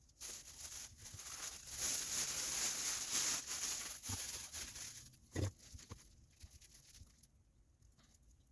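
Rustling, crinkling handling noise lasting about five seconds, then a single knock.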